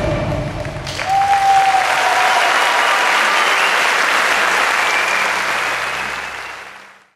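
Drum-led music ends about a second in, and an audience applauds, the applause fading out near the end.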